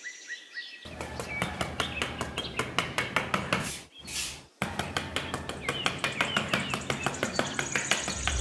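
Small metal garden trowel scraping over sand in quick repeated strokes, about five a second, pausing briefly near the middle. Birds chirp in the background.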